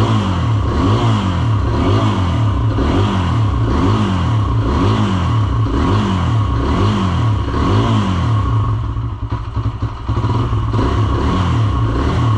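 Kawasaki KLX140R F's small single-cylinder four-stroke dirt-bike engine being revved up and down about once a second, then settling to steadier running about nine seconds in. The engine has just been brought back to life after sitting with old fuel and is close to holding an idle.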